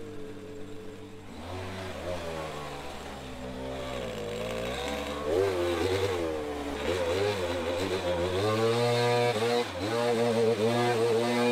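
Gas backpack leaf blower engine running, its pitch rising and falling as the throttle is worked. It gets louder about halfway through.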